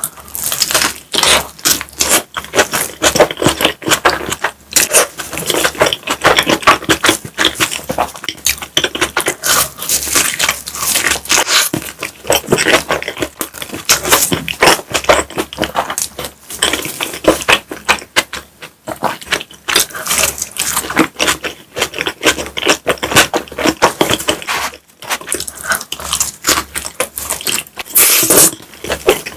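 Close-miked mukbang eating sounds: chewing and mouth noises from someone eating pizza and mac and cheese, a rapid, irregular clicking and crackling that never lets up.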